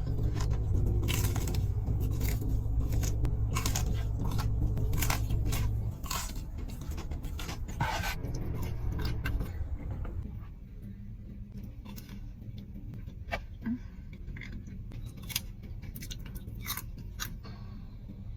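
Close-miked eating sounds: crunchy bites and chewing, dense for about the first eight seconds and then only occasional clicks. A low hum runs underneath and drops away about six seconds in.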